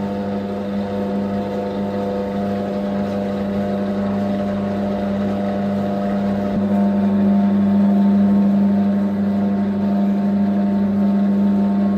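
Commercial bowl dough mixer running steadily, its motor humming as the hook kneads a large batch of dough near the end of kneading.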